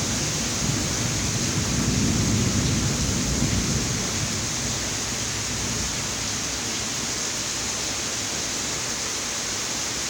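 Heavy rain pouring steadily, with a low rumble of thunder rolling in the first few seconds and fading out about four seconds in.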